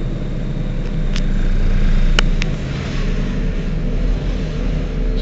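Heuliez Access'Bus GX 127 city bus's diesel engine idling steadily. There are a few short, sharp clicks about one and two seconds in.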